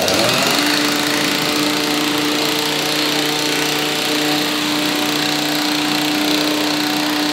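Small petrol engine of a handheld track power tool running at a steady speed, starting about half a second in, while the rails are pinned down to newly fitted wheel timbers.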